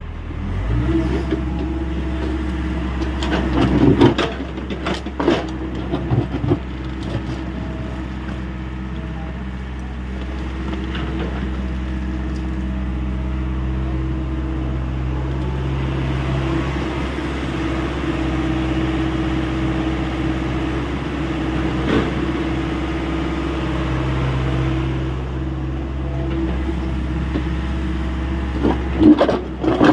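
Hyundai 85A Smart excavator's diesel engine running steadily, with a few knocks and clanks about three to six seconds in and again near the end.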